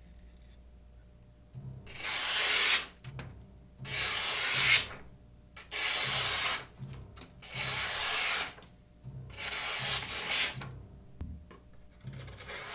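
Large folding knife blade slicing through test material in about five long, even strokes, each a rasping drag lasting about a second, with short pauses between them.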